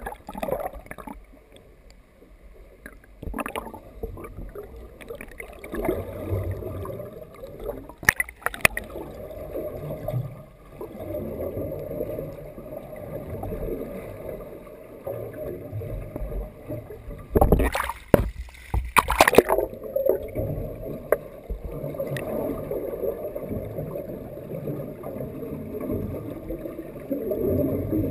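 Muffled underwater water noise: a steady low sloshing and bubbling rush, heard underwater. A few sharp knocks break in, the loudest of them clustered a little past halfway.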